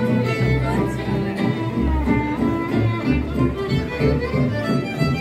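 Busker's violin playing a lively bowed melody over a backing track with a deep, pulsing bass line.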